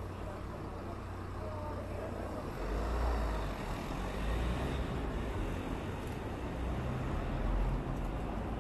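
A motor vehicle drives along the street, a low rumble over steady street noise that grows louder about three seconds in.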